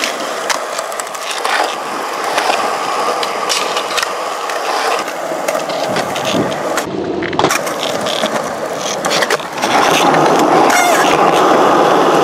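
Skateboard wheels rolling over rough concrete, with the board grinding on a concrete ledge near the start and several sharp clacks of the board popping and landing. The rolling gets louder about ten seconds in.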